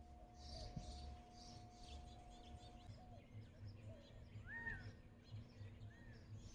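Faint calls of quail: a few soft, short arched chirps and scattered higher twittering, in a near-quiet outdoor background.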